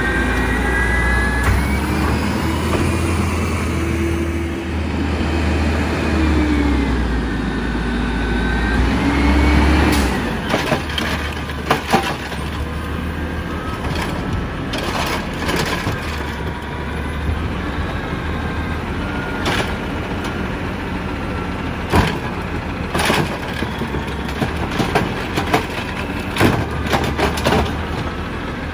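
Peterbilt 320 garbage truck's engine and DaDee Scorpion side-loader hydraulics. For about the first ten seconds the engine runs under load with a whine rising and falling in pitch as the truck pulls up. Then it settles to a steady idle while the automated arm reaches out, grips a wheeled cart and lifts it, with sharp clanks and knocks.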